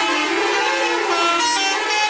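Telolet bus horn playing a tune: several horn tones sounding together and stepping from note to note every fraction of a second.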